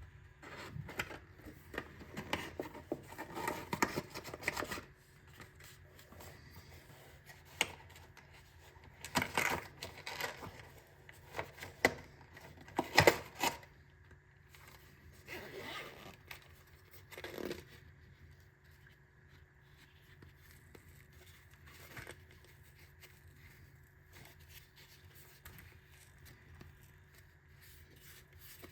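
Packaging being opened by hand: irregular bursts of tearing, scraping and crinkling, with a couple of sharp knocks. It becomes quieter, light handling in the second half.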